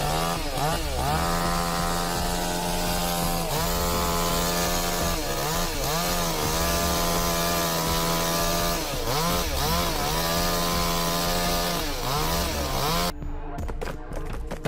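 Chainsaw engine running at high revs while cutting. Its pitch drops and recovers several times as the chain bites into the wood and is eased off. About 13 seconds in it cuts off suddenly, and a run of sharp clicks follows.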